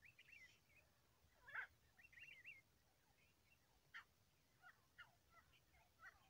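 Grey francolins (grey partridges) calling faintly: a string of short, quickly wavering squeaky chirps, some in quick clusters, the loudest about one and a half seconds in.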